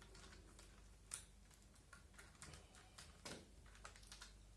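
Faint, irregular clicks and light scrapes of a small hex key turning the screw that holds the flash hider on an airsoft MP5, with one sharper click about a second in.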